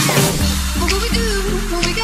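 Background music: an electronic dance track with sliding bass, changing about half a second in to a melody over an evenly pulsing bass line.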